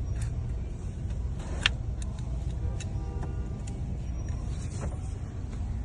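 GMC Sierra engine running steadily with a low rumble, with a few light clicks and one sharper tick about a second and a half in.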